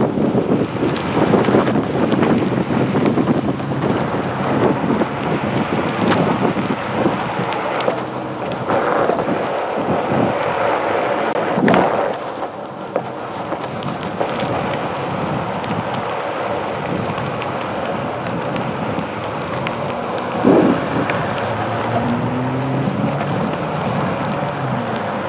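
Wind rumbling on an action camera's microphone and a Onewheel Pint's tyre rolling over pavement, with two short bumps, one about halfway through and another later on. Near the end a faint whine from the board's hub motor rises and falls in pitch.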